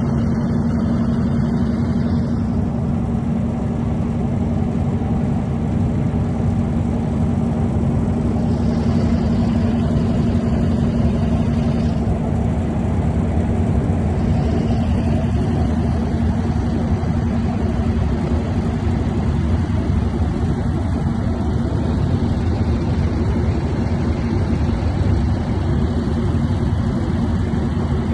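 Benapole Express passenger train running steadily: a continuous rumble with a constant low hum.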